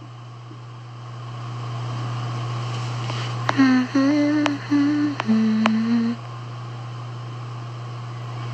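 A woman humming a short tune of a few held notes, starting about three and a half seconds in and stopping about two and a half seconds later, over a steady low hum.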